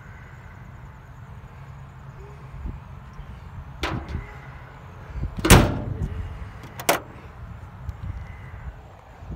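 Trunk lid of a 1965 Buick Riviera being shut: one loud thud a little past halfway, with a lighter knock about a second and a half before it and another about a second and a half after.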